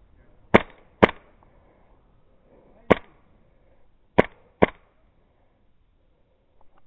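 Airsoft gun fired five times close by: sharp cracks in a quick pair about half a second in, a single shot near three seconds, then another quick pair a little after four seconds.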